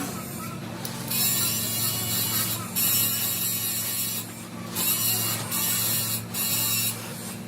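A steady machine hum with about five bursts of hissing noise over it, each lasting roughly a second, in the middle of the stretch.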